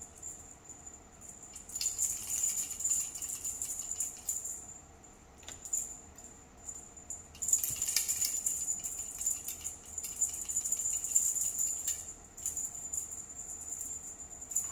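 Cat wand toy rattling and jingling as it is shaken, in two long bursts, over a faint steady high-pitched whine.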